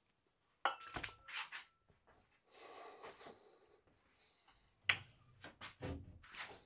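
Metal weights being handled: sharp clinks and knocks as dumbbells and weight plates are picked up and set down, a few about a second in and a cluster more near the end, with soft rustling and shuffling in between.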